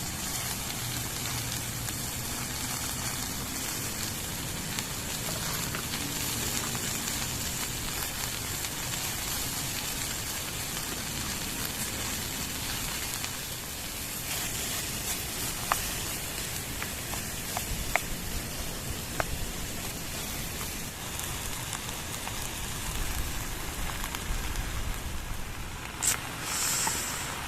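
Vegetables sizzling as they are stir-fried in oil in a pan: a steady hiss with a few sharp clicks of a utensil against the pan in the second half.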